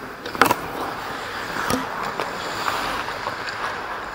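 Ice hockey rink sounds: skate blades scraping and carving on the ice with hockey gear rustling, broken by a sharp knock about half a second in and another near two seconds.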